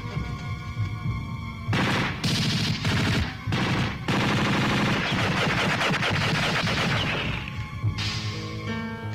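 Film gunfire: rapid bursts of automatic fire from about two seconds in to about seven and a half seconds, with a short break near the middle. A film score plays under it at the start and end.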